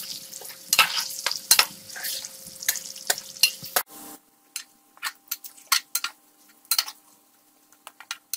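Steel spoon stirring and scraping diced potatoes frying in oil in a metal karahi, with the oil sizzling. About four seconds in the sizzle drops away sharply, leaving only scattered scrapes and taps of the spoon against the pan.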